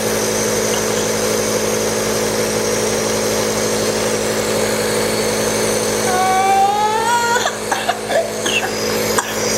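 A steady mechanical hum with several fixed tones, over which, about six seconds in, a young child gives one high, drawn-out whine that rises in pitch for about a second and a half, followed by a few short clicks and knocks.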